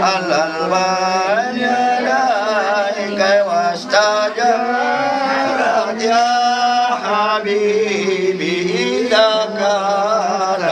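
A man chanting in a long, wavering, melismatic line over a steady low tone.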